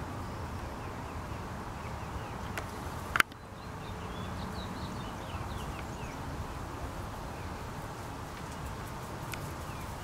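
Steady outdoor background noise with faint, short high bird chirps, mostly around four to six seconds in. One sharp click about three seconds in is the loudest sound.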